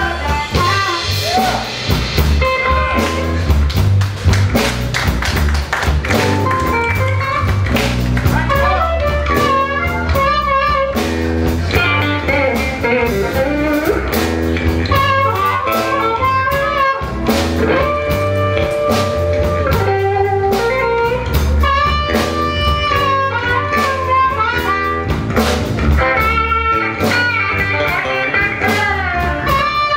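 Live blues band playing an instrumental stretch of a slow blues: electric and acoustic guitars, harmonica, bass guitar and drum kit, with bent lead notes over a steady bass and drum groove.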